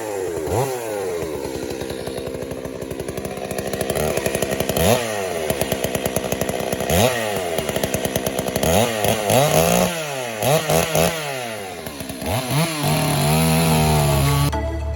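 Holzfforma G388 72 cc two-stroke chainsaw with a 25-inch bar cutting through big logs, its engine pitch rising and falling repeatedly as it is revved and loaded in the cut. Electronic music cuts in abruptly about a second before the end.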